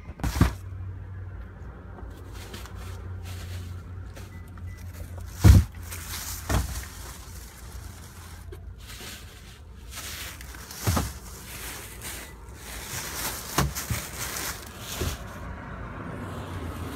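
Plastic shopping bags rustling and knocking as they are lifted out of a shopping cart and set down, with several sharp knocks, the loudest about five and a half seconds in, over a steady low rumble.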